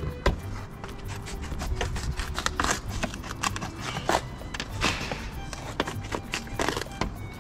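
Hand tin snips cutting the edge of a sheet-metal roofing panel: a run of short, sharp snips at irregular intervals, over background music.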